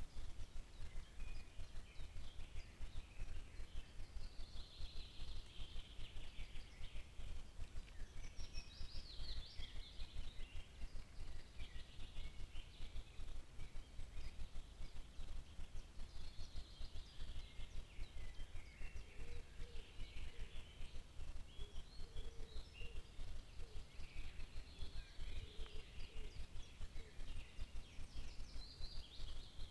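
Woodland birds singing on and off, in bursts of high chirping, over a constant low crackling noise.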